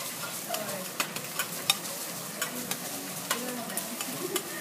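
Fried rice sizzling on a steel teppanyaki griddle as a chef chops and scrapes through it with a metal spatula, with frequent sharp clicks of the spatula on the hotplate over a steady hiss.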